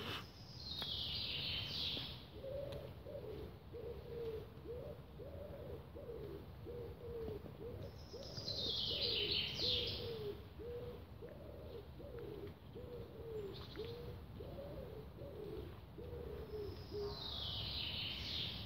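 Birdsong among trees: a songbird's high, trilled song that descends in steps, heard three times about eight seconds apart, over a low cooing call repeated steadily, a bit more than once a second.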